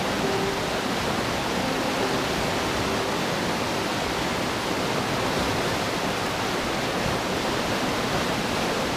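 Outflow of a large karst spring rushing in whitewater rapids over rocks: a steady, even rush of water.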